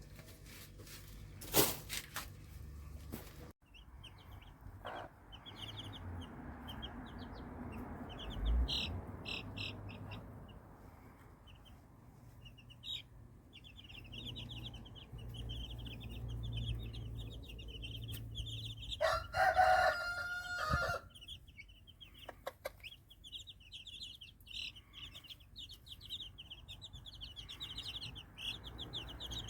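Chicks peeping in a steady stream of quick high cheeps. About two-thirds of the way through, a rooster crows once for about two seconds. A sharp click comes about a second and a half in.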